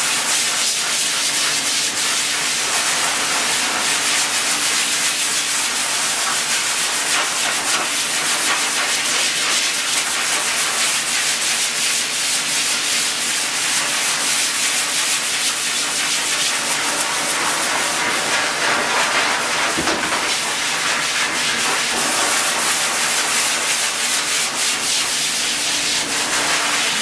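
Variable-speed pet force dryer running, a loud steady rush of air from its hose blowing through a dog's coat.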